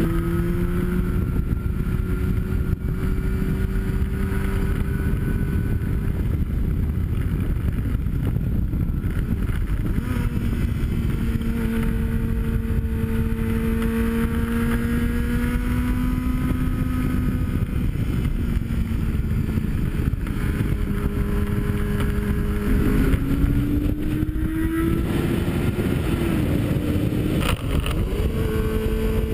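Yamaha sport motorcycle's engine running at road speed under a heavy rush of wind over the microphone. The engine note holds, climbs slowly and jumps to a new pitch a few times, about ten seconds in and again near the end, as the revs change.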